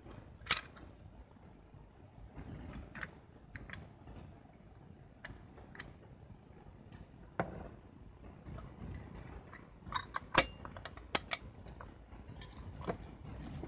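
Handling of an Olympus Pen EE-3 film camera as a 35mm film cartridge is lifted out: scattered small clicks and knocks of plastic and metal over a soft rustle, with a cluster of sharper clicks about ten to eleven seconds in.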